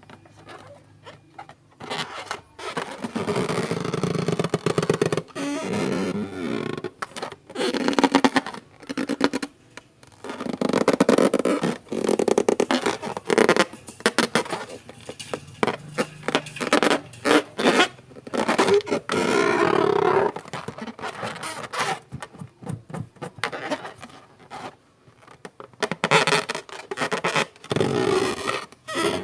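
Slime being squeezed and stretched by hand at close range, squelching and crackling in repeated bouts of a second or two with short pauses between.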